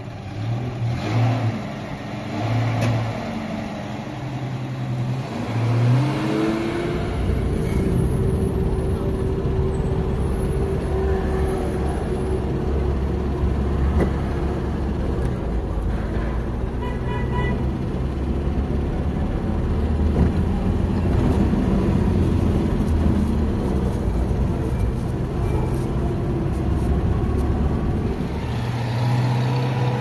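Vehicle engine running at idle, then revving up and pulling away about six seconds in, followed by a steady low driving rumble.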